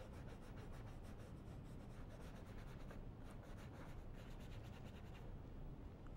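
Faint, quick scratchy strokes of a thin paintbrush working oil paint across a stretched canvas, over a low steady hum.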